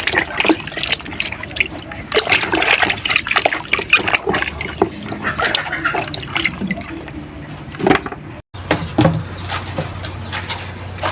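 Water splashing and sloshing as plantains are washed by hand in a basin, with irregular knocks and rubbing. It breaks off sharply about eight and a half seconds in, and quieter noise over a low hum follows.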